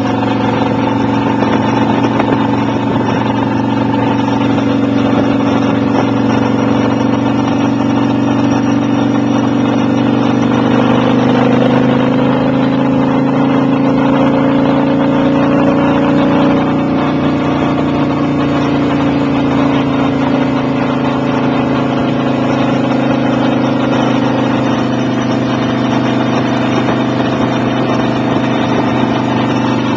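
Victory Kingpin V-twin motorcycle engine running at road speed, with wind and road noise. Its pitch and loudness rise a little about a third of the way through, then ease back around the halfway point.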